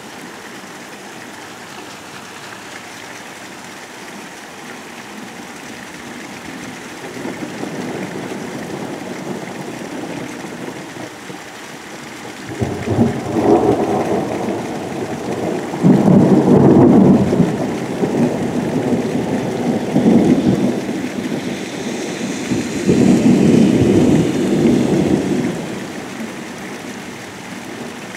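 Heavy rain falling steadily, with a long roll of thunder that builds from about a quarter of the way in, swells into several loud peaks through the second half, and fades near the end.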